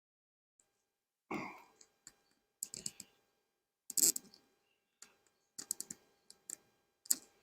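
Irregular clicks and knocks of wooden beehive frames and boxes being handled during a hive inspection, the loudest about four seconds in.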